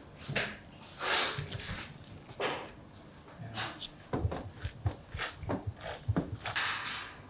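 Hands handling raw kazy horse-meat sausages in a metal tray: irregular rubbing and sliding sounds, with a quicker run of small knocks in the second half.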